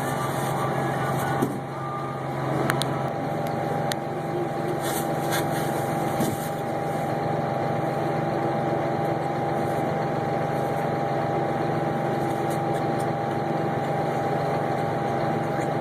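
Combine harvester engine and machinery running steadily, with a few short clicks early on and the engine note rising slightly about three seconds in.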